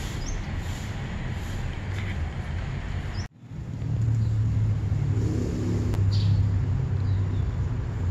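Steady low rumble of road traffic. It cuts out briefly about three seconds in, then returns as a stronger, steadier low hum, with a few faint short high chirps.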